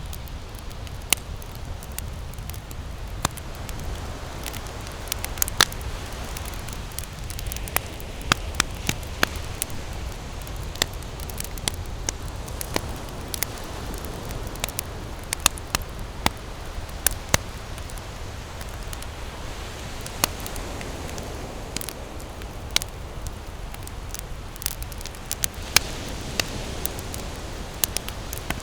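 Wood campfire burning and crackling, with frequent irregular sharp pops over a steady low rumble.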